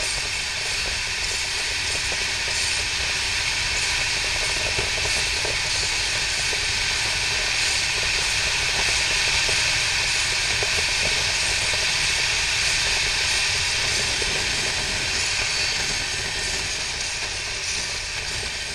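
BMW R 1200 RT boxer-twin motorcycle riding at road speed: steady wind rush and hiss over an onboard camera, with engine and road noise underneath, a little louder in the middle and easing near the end.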